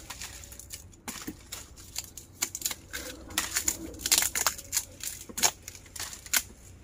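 Dry nipa palm fronds and litter crackling and snapping in irregular clicks as they are cleared away by hand.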